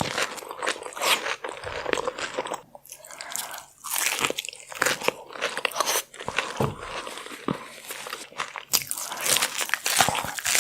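Close-miked mukbang eating of a sauce-covered seafood boil: irregular crunching, biting and wet chewing, with sharp smacking clicks throughout.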